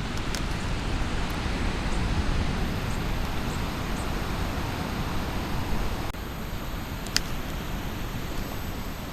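Steady outdoor rushing noise that drops abruptly in level about six seconds in, with one short sharp click about seven seconds in.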